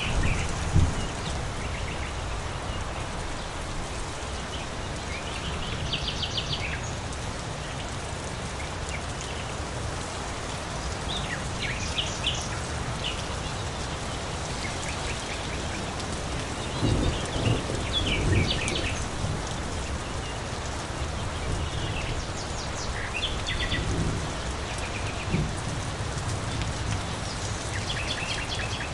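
Steady rain, with short bird calls every few seconds. There is a brief low rumble about two-thirds of the way through.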